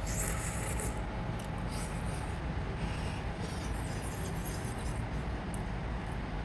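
A person slurping noodles off a fork near the start, then blowing out through pursed lips against the heat of a very spicy broth, over a steady low background rumble.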